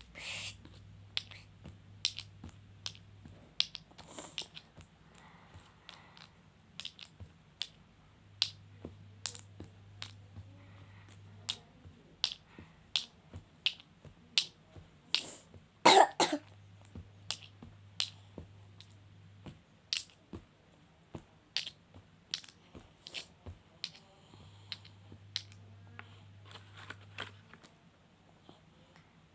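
Many irregular sharp clicks and taps, one or two a second, of small plastic toy pieces and packaging being handled, with one louder burst about sixteen seconds in.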